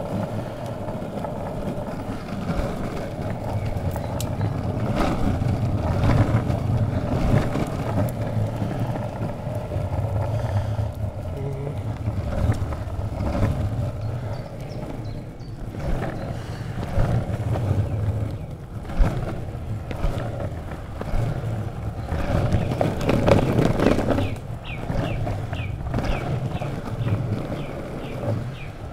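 Longboard wheels rolling over an asphalt path: a steady low rumble with scattered knocks from bumps and cracks in the surface.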